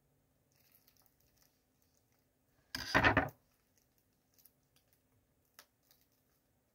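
Shrink-wrap on a CD case being picked at by fingers without coming off: faint scattered clicks and rustles, with one short loud crinkle of the plastic about three seconds in.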